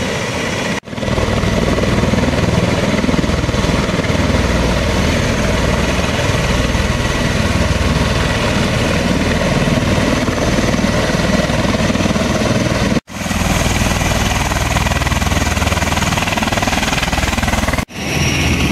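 MV-22 Osprey tiltrotors' engines and proprotors running loudly and steadily, with a low rotor beat. The sound drops out abruptly three times: about a second in, about two-thirds of the way through, and near the end.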